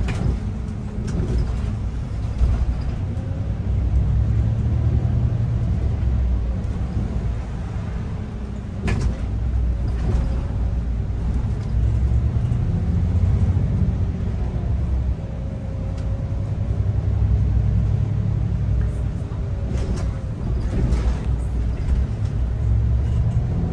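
City bus driving, heard from inside the cabin: a steady low rumble with a faint whine that slowly rises and falls with speed. A few sharp knocks come about nine seconds in, again a second later, and twice near twenty seconds.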